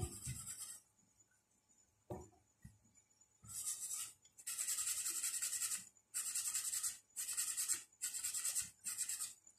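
A small brush scrubbing the Acer 4738 laptop motherboard clean with thinner, in quick back-and-forth strokes. It makes a scratchy rasping that comes in six short runs over the last six seconds, preceded by a couple of light knocks as the board is handled. The board is being cleaned of the dirt that was making the laptop shut off a few seconds after power-on.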